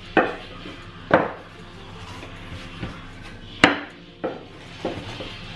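Wooden rolling pin knocking on the countertop while dough is rolled out: several sharp, irregular knocks, the loudest about three and a half seconds in.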